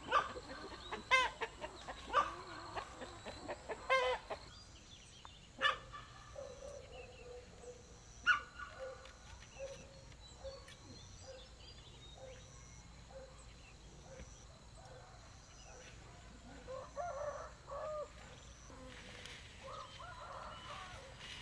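Chickens clucking: a few loud calls in the first four seconds, then a run of short, low clucks about twice a second, with a few louder calls near the end.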